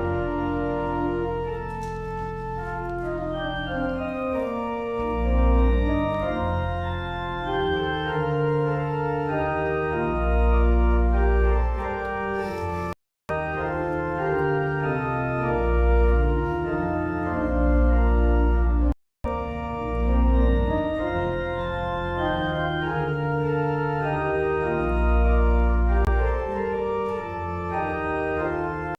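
Organ music: slow, sustained chords over deep bass pedal notes. The audio drops out completely for a split second twice.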